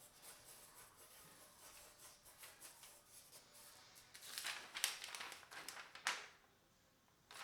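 Faint handling noises from a Swiss Army knife with a small pencil fitted in its corkscrew: light scratching and small clicks, busier and louder a few seconds in, ending with a sharp click about six seconds in.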